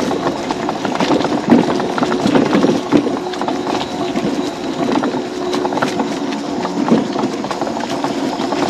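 Electric off-road mobility scooter running over an unpaved dirt trail: its motor gives a steady hum while the frame rattles and knocks over the bumps.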